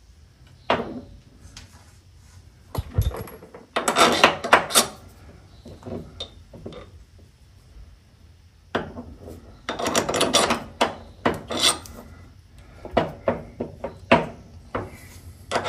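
Light metal clinking and rattling as the threaded end of an SPC adjustable rear control arm is spun out and handled to set its length. The clicks come in clusters, about three seconds in and again from about nine seconds, with quieter gaps between.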